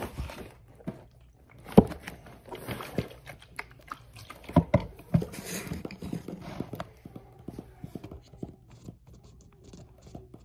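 ASMR-style tapping and handling of objects close to the microphone: irregular clicks and knocks, the sharpest about two seconds in, then lighter, quicker taps through the second half.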